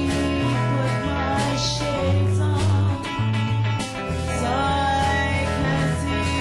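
Band music: a bass line stepping from note to note about every half second, with sustained and gliding melody lines above it.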